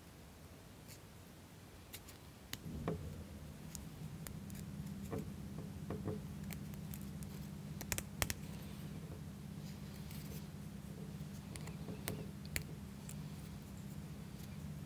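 Light clicks and taps of thin plywood model-kit parts being handled and fitted together by hand. A low steady hum comes in about two and a half seconds in.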